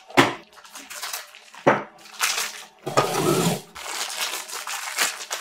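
Knocks and clatter of a plastic X-Acto knife case being opened and the hobby knife handled, then rustling and crinkling of a small plastic bag of dice being cut and pulled open, with small clicks near the end.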